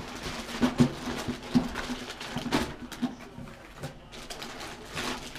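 Packaged chatterbait lures being handled and shuffled: irregular clicks, taps and rustles of the plastic packaging.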